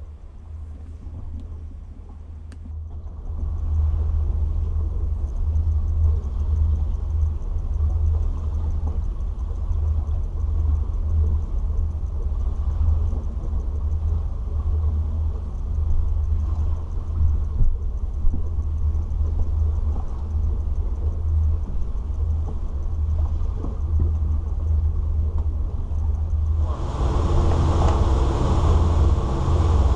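A 2000 Sea Ray 340 cruiser's engines idle in neutral as the boat drifts, giving a low steady rumble. Near the end a louder rushing hiss joins in.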